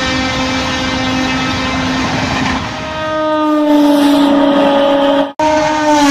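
Train horn held long and steady over the rumble of a passing train. About halfway through, a higher horn note slides slowly down in pitch as a locomotive passes close by. The sound drops out for an instant near the end.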